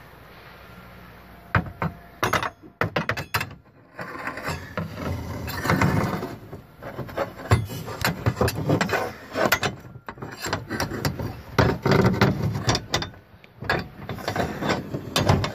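A long steel paintless-dent-repair rod (a bent 35 heavy) being worked up inside the aluminium trunk lid of a Tesla Model S through an access hole, scraping and knocking against the lid's inner bracing in a string of clicks and rasps.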